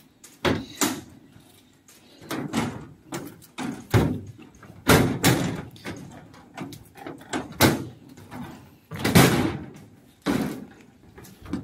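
Footsteps knocking on the deck panels of a suspension footbridge, about one step a second, uneven in loudness, with the loudest a little after nine seconds in.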